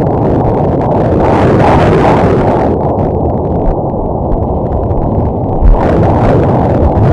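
Pulsed-wave Doppler audio from an obstetric ultrasound machine sampling the fetus: a loud, rough whooshing noise that swells in a couple of gusts.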